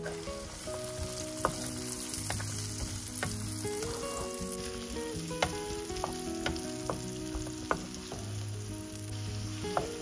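Diced red onion sizzling in hot oil in a nonstick frying pan, stirred with a wooden spatula, with about eight scattered sharp clicks and pops.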